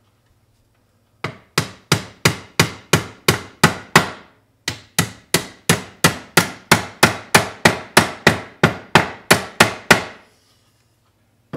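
Claw hammer knocking on the edge of a wooden drawer side, a steady run of sharp blows about three a second with a short pause about four seconds in.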